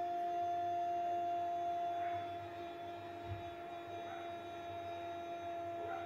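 A steady held tone with overtones, unchanging in pitch.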